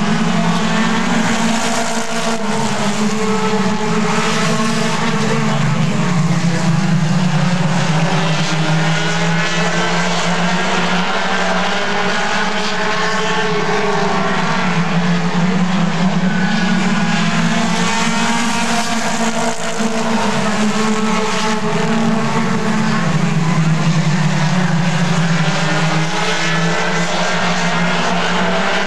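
Mini stock race cars' four-cylinder engines running at racing speed around an oval, a continuous drone whose pitch rises and falls slowly as the cars come around the track.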